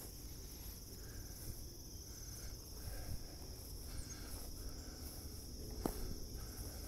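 Steady high-pitched chorus of insects, with a low rumble underneath and a single sharp click about six seconds in.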